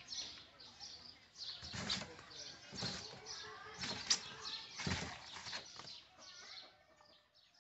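Woven bamboo basket rustling, creaking and scraping on bare dirt as baby monkeys clamber on it and rock it, in four or five louder rustling bursts with dull knocks, dying down near the end.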